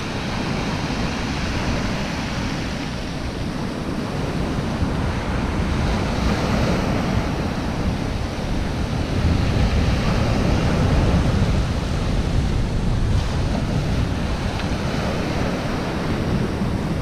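Rough sea: big rolling waves breaking and washing up the beach, with strong wind buffeting the microphone. The surf swells a little louder partway through.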